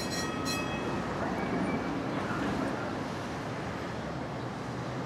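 Tram standing at a stop with its doors open, a steady running noise. Two short high-pitched tones sound near the start.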